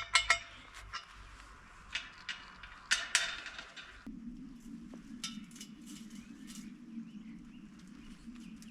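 Several sharp clicks and knocks from hand work on the fence in the first few seconds, then from about four seconds in a steady low hum.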